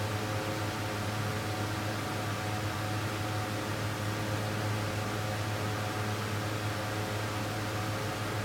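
Steady electric motor hum under an even hiss, unchanging throughout, like a fan or air-handling unit running in a small room.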